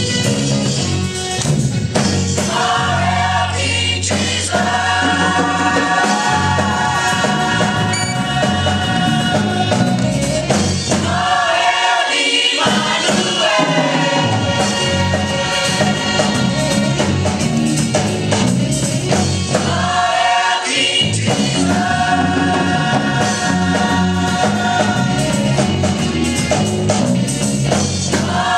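Large gospel choir singing in long held phrases over instrumental accompaniment. The singing drops out briefly about a third of the way in and again about two-thirds of the way through.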